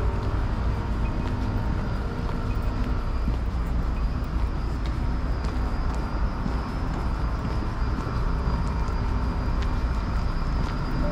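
Steady outdoor city ambience: a continuous low rumble of passing road traffic with a faint general hum over it.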